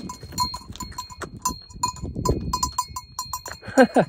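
Small bell on a horse's leather collar clanking as the horse moves, several uneven metallic strikes a second.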